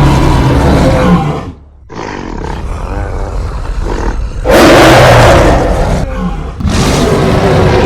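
A string of monster roar sound effects cut one after another: a roar breaks off about a second and a half in, a quieter roar follows, then the loudest roar comes about halfway through, and a new one starts near the end.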